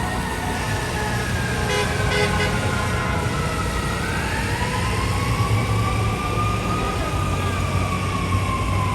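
FDNY Rescue 1 heavy rescue truck's siren wailing, its pitch sweeping slowly up and then down over several seconds, over a steady low engine rumble.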